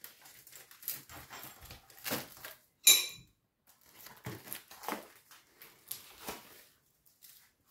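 Kitchen handling sounds while a teaspoon of salt is measured out: scattered soft knocks and rustles, with one sharp, ringing clink about three seconds in.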